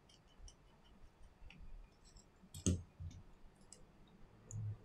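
Small, sharp clicks and taps from a precision screwdriver and tiny parts being handled on an opened iPhone XS. One louder click with a knock comes about two and a half seconds in, and a soft thump comes near the end.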